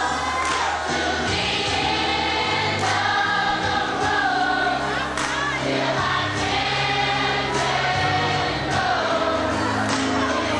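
Choir singing a gospel-style song over held bass notes and a steady beat.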